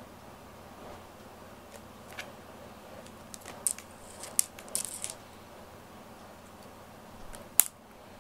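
A cat moving on a wooden floor and pawing at a loose cord, giving a scatter of light, sharp clicks and taps, with one louder click near the end.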